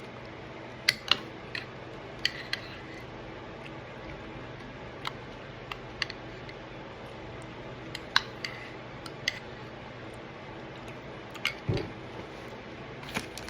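Scattered light clicks and taps of tableware being handled, a dozen or so spread irregularly, over a steady low hum.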